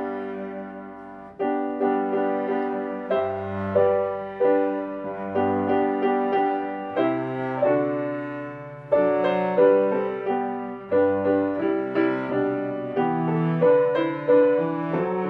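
Slow instrumental piano music: notes and chords struck one to two a second, each ringing and dying away before the next.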